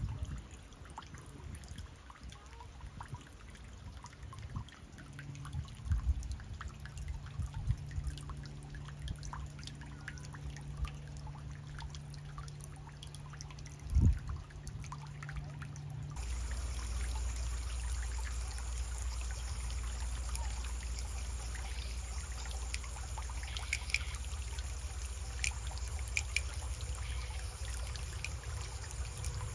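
Shallow water trickling and lapping, with scattered small splashes and one sharp knock about fourteen seconds in. About sixteen seconds in the sound cuts to a steadier low rumble.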